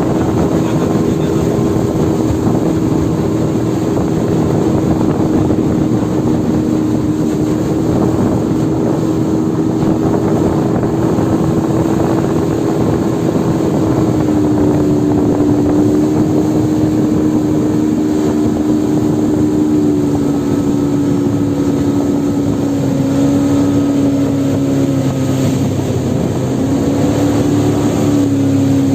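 Small boat engine running steadily under way, its pitch easing down slightly in the second half, with wind on the microphone.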